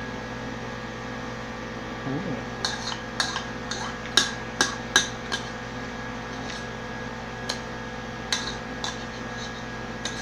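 Spoon clinking and scraping against a bowl as it is scraped clean of the last noodles: a quick run of sharp clinks for about three seconds, starting a couple of seconds in, then a few scattered ones.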